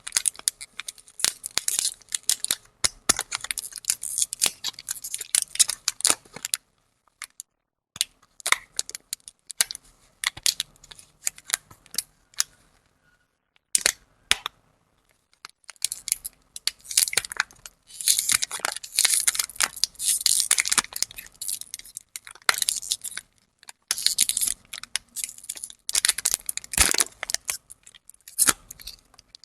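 Plastic lollipop wrappers crinkling and tearing as they are unwrapped close up, in runs of sharp crackles and snaps. There are short pauses about seven seconds in and around the middle, then denser crinkling through the second half.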